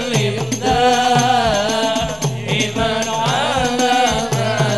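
Hadroh ensemble performing a sholawat: a singer's voice carries a winding melody over frame drums and a large bass drum beating a steady, quick rhythm.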